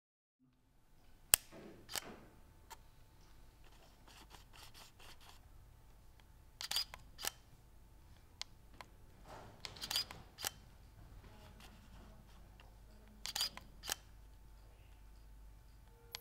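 A series of sharp clicks over a quiet room hum. The loudest is a single click about a second in, and quick clusters of two or three clicks follow around the middle and near the end.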